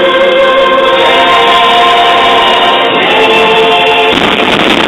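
Music with long held notes; about four seconds in it gives way to a denser, noisier sound.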